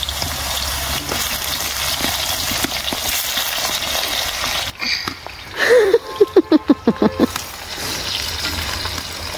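Potato sticks deep-frying in hot oil in a cast-iron wok, a steady sizzle. About six seconds in, a brief loud run of about nine quick pitched sounds cuts across it.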